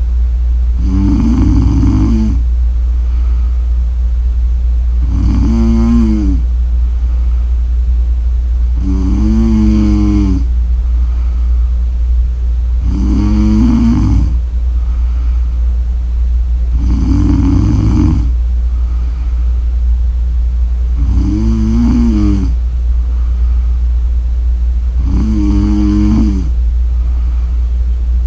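A woman snoring in a slow, even rhythm, about one snore every four seconds, seven in all. Each snore has a pitched rattle. A steady low hum runs underneath.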